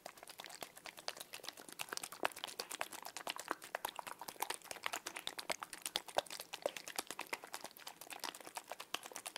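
Small blue water-filled gel pieces ('frutitas con agua') squeezed and rubbed between the fingers, giving a dense run of quick, sharp crackles and squishes.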